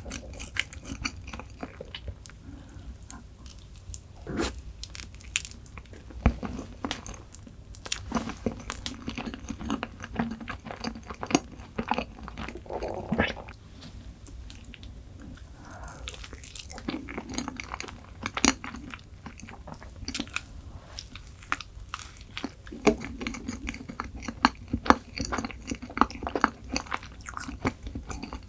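Close-miked eating: chewing and biting chocolate dessert, with many small, irregular crisp crackles and crunches.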